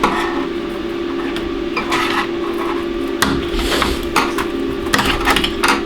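Metal clanking and scraping as the riveted halves of a large steel ball bearing race are prised apart, with a scatter of sharp knocks. A steady hum runs underneath.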